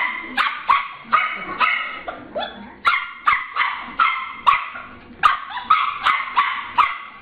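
A small dog barking over and over in quick, high-pitched barks, about two to three a second, without a pause.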